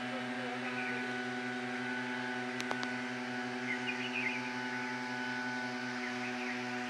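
Engine of a motorized tea harvester running at a steady speed: a constant drone with a fixed pitch and a fast, even pulse.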